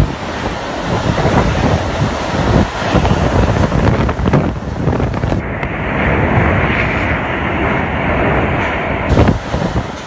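Cyclone-force wind gusting hard and buffeting the microphone, with a cut to a different recording of the storm about five and a half seconds in.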